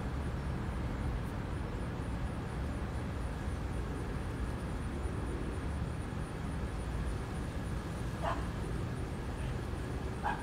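Steady low background rumble, with a dog's short yips about eight seconds in and twice right at the end.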